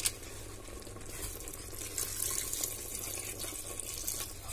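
Water poured from a plastic jug into a pressure cooker pot of frying pork and spices, a splashing pour that builds from about a second in. A short tap at the very start.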